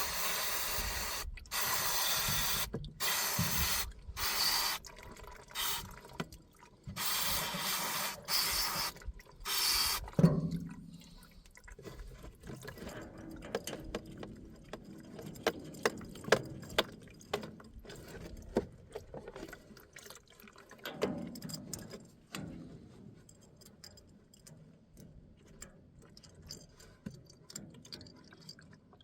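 Aerosol brake cleaner sprayed onto a dirty diesel fuel filter to clean it, hissing in a series of bursts with short gaps over the first ten seconds. After that, liquid dripping and small clicks as the filter is handled.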